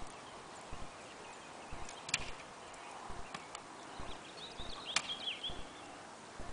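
Kick scooter rolling on a concrete sidewalk, its small hard wheels clacking in quick pairs over the joints several times.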